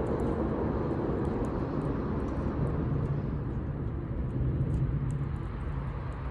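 Campfire with faint scattered crackles over a steady low rumble; a low hum rises into the rumble partway through and fades near the end.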